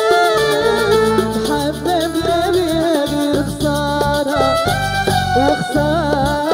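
A woman singing a Moroccan song into a microphone, her melody winding up and down over backing music with a steady beat and shaker-like percussion.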